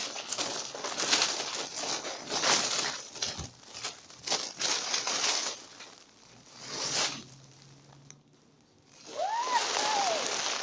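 Plastic candy wrappers and trick-or-treat bags rustling and crinkling in irregular bursts as a pile of Halloween candy is poured out and handled. Near the end there is a short rising-and-falling cry.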